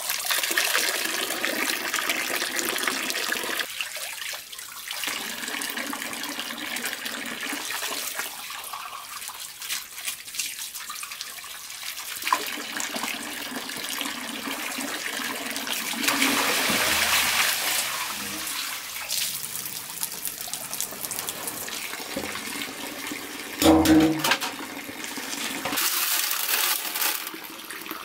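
Water running and splashing, with one brief, louder pitched sound near the end.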